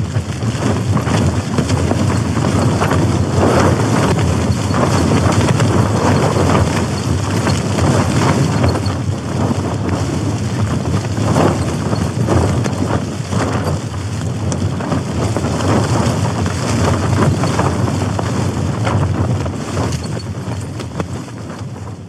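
Strong wind gusting against a tent, heard from inside: a loud, dense rushing that rises and falls, with many short slaps of the fabric.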